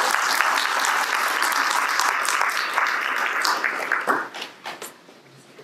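A small audience applauding: dense clapping that thins to a few scattered claps and dies away near the end.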